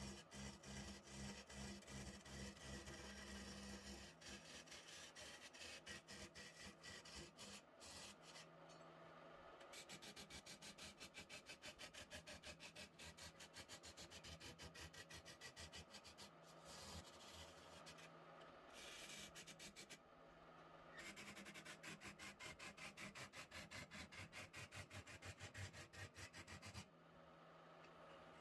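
Wood lathe motor humming steadily while something is rubbed back and forth against the spinning wood in quick, even strokes, several a second, stopping for a moment a few times and then going on.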